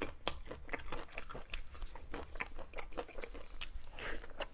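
Close-miked chewing and biting of braised fatty pork: irregular mouth clicks and smacks, several a second.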